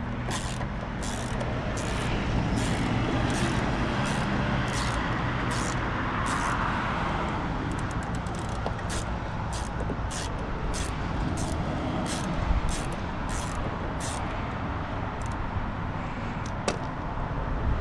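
A ratchet clicking in a steady rhythm, about two clicks a second with a quicker run partway through, as a T25 Torx fastener on a Fiat 500 door handle is worked loose. Steady outdoor background noise with a low hum runs underneath.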